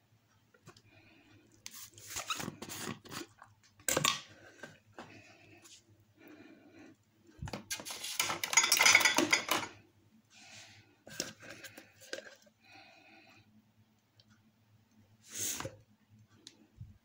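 A plastic mayonnaise jar being opened and handled over a plastic bowl of raw chicken: irregular knocks and rustles, with a sharp click about four seconds in and a rough, scraping stretch of about two seconds near the middle as the loudest part.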